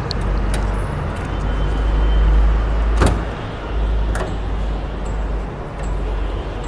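Car bonnet being opened. There is a sharp clunk about three seconds in and a lighter click about a second later as the latch and its safety catch are freed, over a steady low rumble.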